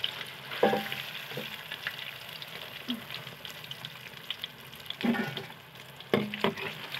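Lentil-paste fritters deep-frying in hot ghee: a steady sizzle with fine crackling. A few knocks of a steel slotted spoon against the pan, most near the start and toward the end.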